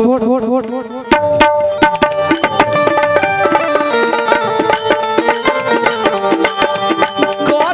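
Live stage-show band music: hand-drum percussion in a fast, even rhythm under held melody notes. The drums come in about a second in, after a short wavering melodic line.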